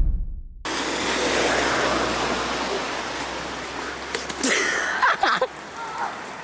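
Rushing, splashing water noise that starts abruptly and slowly fades, with a short cry from a voice about four and a half seconds in.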